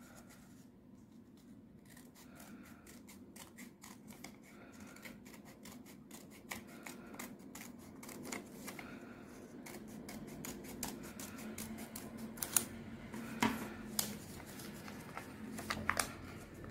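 Small scissors snipping through folded origami paper in a long run of short, light cuts, with a few louder clicks in the second half.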